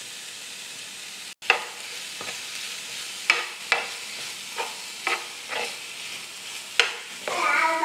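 Chicken and vegetable stuffing sizzling in a frying pan while a metal spoon stirs it. The spoon scrapes and taps against the pan in irregular strokes about once or twice a second.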